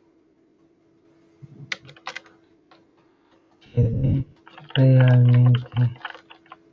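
Computer keyboard typing: scattered clusters of key clicks. A little past halfway there is a muffled low bump and then a short, steady low hum, the loudest sound.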